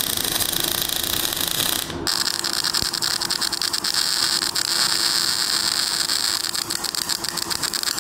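MAG welding arc stuttering and crackling unevenly, like an old tractor: the settings are too cold, with too little power for the amount of wire fed for the plate thickness. About two seconds in the crackle turns sharper and denser.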